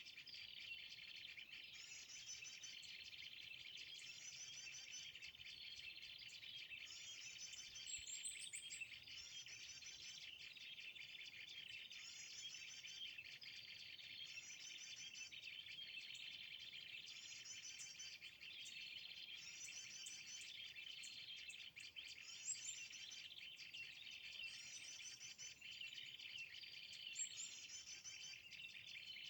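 Faint small-bird call: a short, high phrase repeated at an even pace about every second and a half, the same each time, over a steady insect drone. A few louder, different chirps break in now and then.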